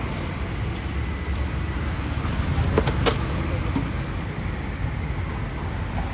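Steady low rumble of street traffic, with two short sharp clicks about three seconds in.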